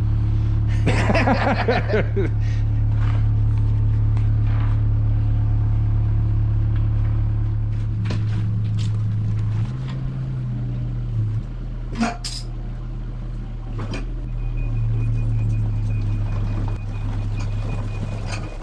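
Diesel engine of a Kubota KX-121-3 mini excavator running steadily, its pitch and level shifting a little partway through as the hydraulics work the jib boom. A few sharp metal clinks come near the middle.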